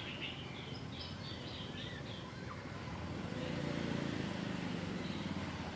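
A bird gives a quick run of about seven high chirps in the first two seconds over steady outdoor background noise, then a low hum swells and holds through the second half.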